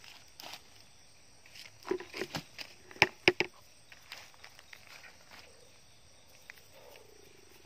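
Footsteps through dry leaf litter on a forest floor: scattered crunches and crackles, with a brief cluster of sharper snaps of twigs and leaves about three seconds in.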